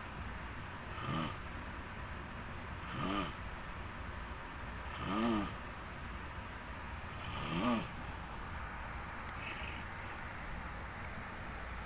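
Snoring: four snores about two seconds apart, each rising and then falling in pitch, then a pause with no snore.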